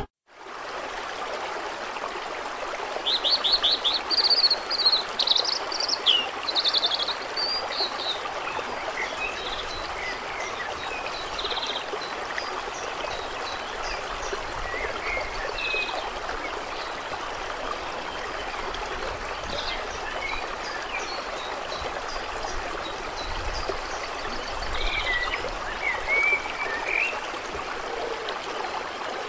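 Running water of a stream, a steady rushing, with birds chirping and calling over it: a busy burst of calls a few seconds in, scattered calls after, and a few more near the end.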